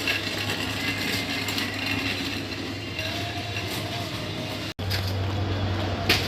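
Steady low hum of a vehicle engine running with general traffic noise, broken once by a very brief dropout about three-quarters of the way through.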